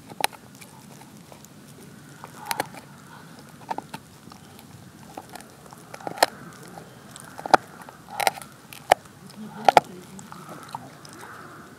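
A dog gnawing and chewing, with sharp crunches and cracks coming at irregular intervals, several seconds apart or in quick pairs.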